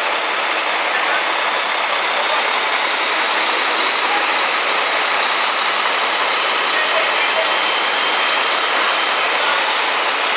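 The crane truck's engine running steadily to power a truck-mounted knuckle-boom crane holding a transformer on its hook: an even, unchanging machine noise.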